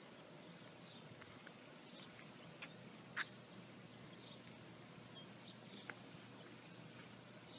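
Very faint outdoor quiet with small birds chirping now and then, and a few sharp clicks, the loudest about three seconds in. No wind roar from the tornado is heard.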